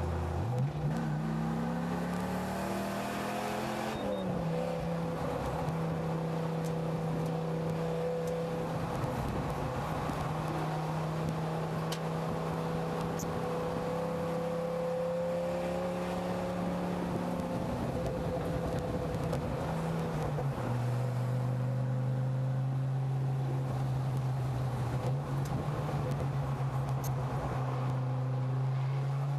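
Dodge Ram SRT-10 pickup's V10 engine under way on a track: revs climb over the first few seconds, drop with a shift about four seconds in, then hold steady. About twenty seconds in the engine note falls to a lower pitch and begins to climb again near the end.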